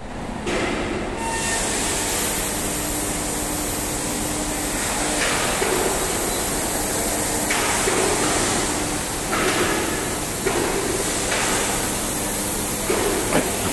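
Steady hum and hiss of machinery in a large factory hall, with a few faint knocks and clanks at irregular intervals.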